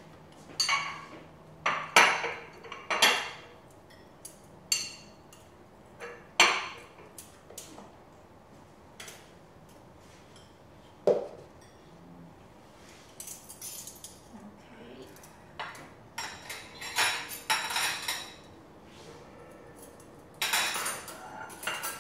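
Metal forks and ceramic plates clinking and knocking: food being served from a steamer onto plates, with plates set down on a stone counter. Sharp, scattered clinks, several close together near the end.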